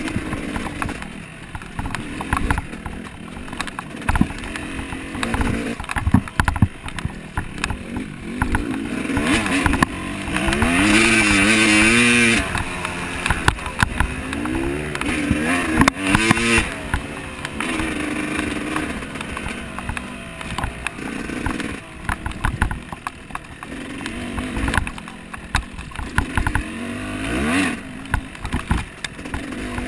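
Off-road motorcycle engine revving up and down over rough ground, with knocks and rattles throughout. The engine pitch rises and falls quickly and is loudest in the middle stretch.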